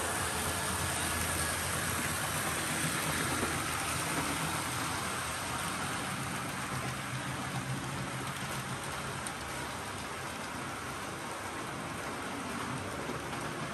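Model train rolling past on the track: a steady rush of metal wheels on the rails, with a low even hum underneath from the locomotive motors.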